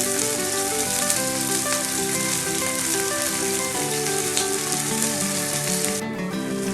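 Steaks sizzling steadily as they sear in a smoking-hot pan, the sound of a pan hot enough for a good sear.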